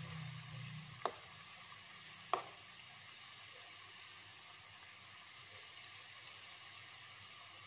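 Breaded fish fingers deep-frying in a small pan of oil over a low flame: a steady, even sizzle. A metal fork turning them clicks sharply against the pan twice, about one and two seconds in.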